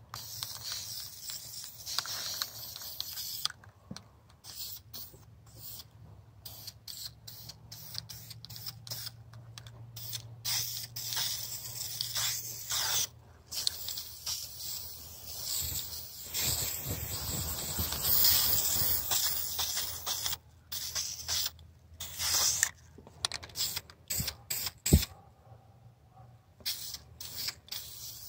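Spray hissing in repeated bursts that start and stop every second or so, a few held for several seconds, over a steady low hum. A single sharp click sounds near the end.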